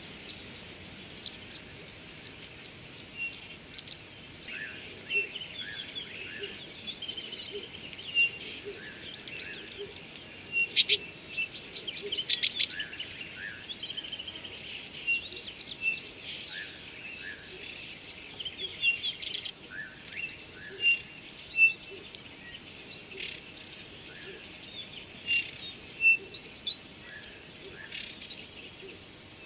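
Outdoor bush ambience: a steady, high-pitched drone of insects with many short bird chirps and calls over it, a few of them louder.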